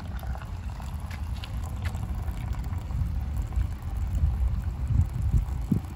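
Liquid poured in a stream from an aluminium pot into a metal bowl, splashing and foaming; the liquid is a boiled herbal medicine. A low, uneven wind rumble on the microphone is the loudest sound.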